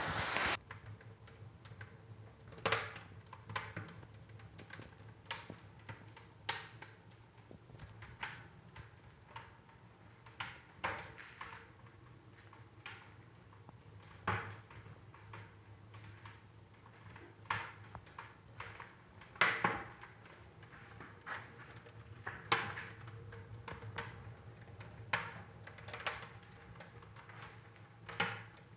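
Fire in a fireplace crackling, with irregular sharp pops and snaps at uneven intervals over a faint steady low hum.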